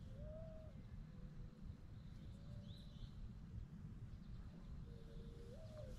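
Quiet outdoor ambience: a low, uneven rumble with faint, thin bird calls now and then.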